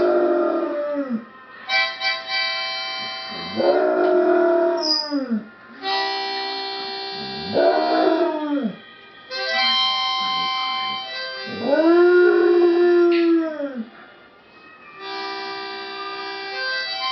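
A dog howling along to a harmonica: four long howls that rise and fall in pitch, about every four seconds, over held harmonica chords.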